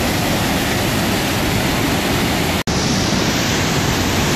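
Floodwater pouring through a hydro dam and churning into whitewater: a loud, steady rush. The sound cuts out for an instant about two-thirds of the way through, then carries on slightly hissier.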